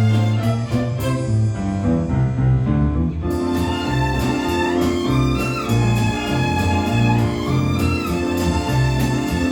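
Violin ensemble playing a lively, upbeat piece with piano accompaniment, the bass stepping between notes in an even beat.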